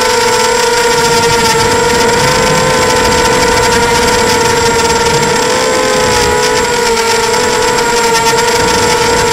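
The motors and propellers of a Wasp 280 FPV quadcopter whine steadily in flight, heard through its onboard camera's microphone. The pitch wavers slightly up and down as the throttle changes.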